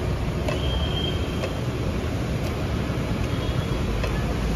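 Steady low rumble and hiss of street-stall background noise, with a few faint light clicks and a brief thin high squeal about half a second in.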